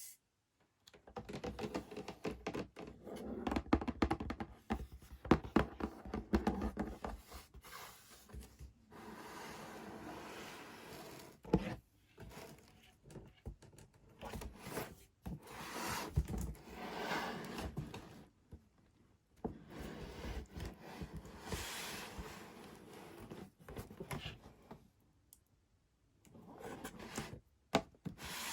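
Hands unboxing a miniature toy kitchen set: packaging rustling and crinkling in stretches, with scattered taps, clicks and thunks as pieces are handled and set down.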